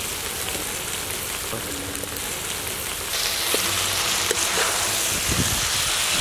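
Egg noodles sizzling in a hot metal wok as boiled noodles go in on top of frying egg and vegetables. About three seconds in the sizzle gets louder as a metal spatula stirs and tosses them, with a few scrapes and taps of the spatula on the wok.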